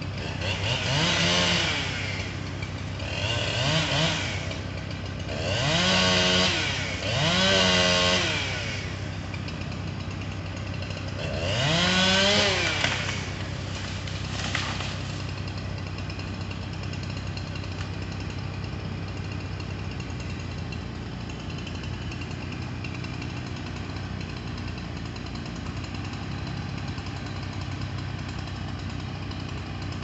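Chainsaw revved hard in five bursts of a second or two each, its pitch rising at each rev, with one short blip a couple of seconds later, cutting a tree limb. A truck engine idles steadily underneath.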